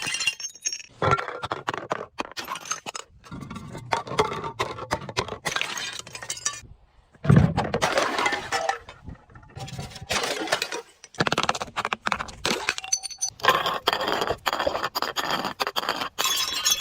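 Glass breaking under crushing: a run of irregular cracks and crackles with clinking shards, and one heavier crunch about seven seconds in.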